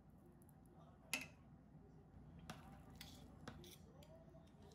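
Near silence: room tone with a few faint clicks, the sharpest about a second in.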